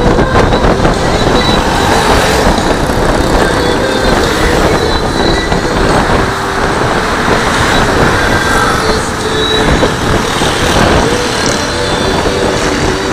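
Honda Click 150i scooter's single-cylinder engine running while riding in traffic, under loud, steady road and wind noise with a deep rumble; other vehicles' traffic noise around it.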